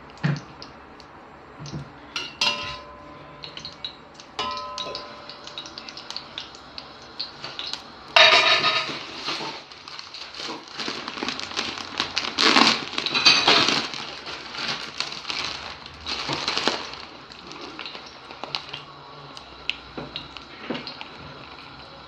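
Kitchen utensils and cookware clinking and knocking. Two ringing clinks come a few seconds in, then a louder stretch of rattling and scraping from about eight to seventeen seconds in.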